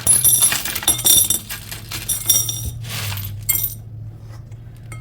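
A handful of small metal charms poured into a bowl: a dense run of bright clinks and jingles that thins to a few scattered clinks and stops after about three and a half seconds.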